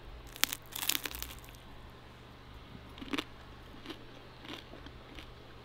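Crunching as a person bites into and chews a fried spot prawn head. There is a cluster of crisp crunches about a second in, then scattered single crunches as the chewing goes on.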